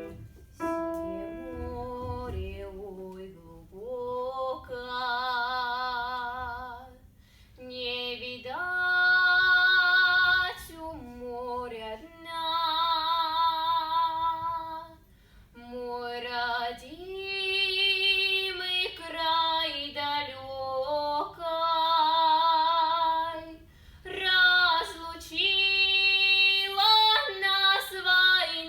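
A young girl's solo voice singing a Russian folk song unaccompanied, in Russian folk vocal style: long held notes with vibrato, with short breaths between phrases.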